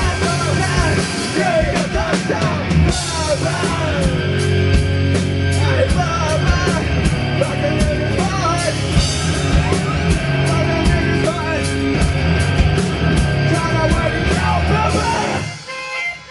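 Live rock band playing a heavily distorted, punk-like song with drums, cymbals and shouted vocals. The band stops about 15 seconds in.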